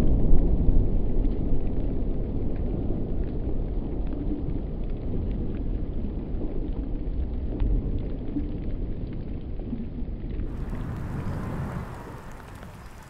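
Low rumble of a blasted concrete motorway viaduct collapsing and settling, fading steadily, with scattered sharp clatter of falling debris. About ten seconds in it gives way to a much quieter, hissing background with light ticks.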